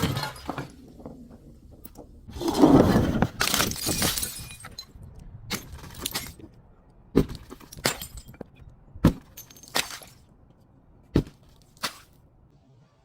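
A glass bottle breaking and being crushed: a long grinding crunch of glass, then single sharp clinks as loose shards settle.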